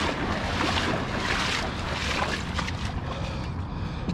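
Continuous splashing and sloshing of floodwater as a person and bike push through it, with irregular splashes throughout.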